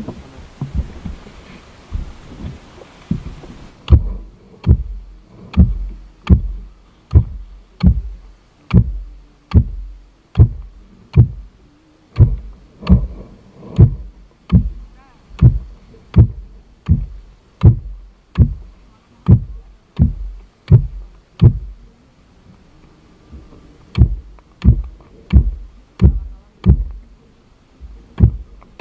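Wind noise on the microphone for the first few seconds, then a long wooden pole being driven into grassy ground by hand: a steady run of dull thuds about once every 0.8 s, with a short pause about three quarters of the way in.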